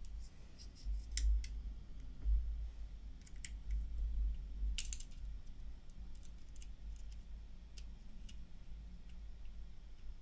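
Small paintball marker parts clicking and tapping as they are handled and fitted together during reassembly, with dull bumps of handling on the bench; the sharpest clicks come a little after one second in and just before five seconds in.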